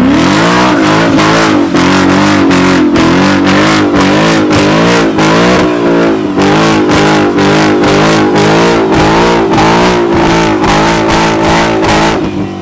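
Car engine held at high revs through a smoky burnout while the rear tyres spin. The pitch wobbles up and down, broken by many brief cuts.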